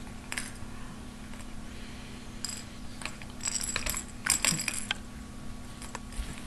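Jingling rattle of a baby's toy ball being shaken and handled: a short shake just after the start, another at about two and a half seconds, then a longer run of jingles from about three to five seconds in. A steady low hum lies under it.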